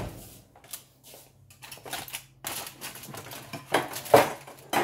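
Kitchen handling clatter: a run of irregular clicks and knocks of dishes and utensils being moved, the loudest pair about four seconds in, over a faint low steady hum.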